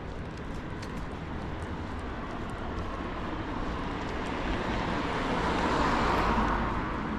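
A road vehicle driving past, its noise swelling slowly to a peak about six seconds in and then starting to fade.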